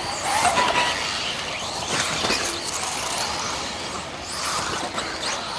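Several 1/10-scale electric off-road RC cars running: their electric motors whine in high pitches that sweep up and down as the cars speed up and brake, over a steady hiss.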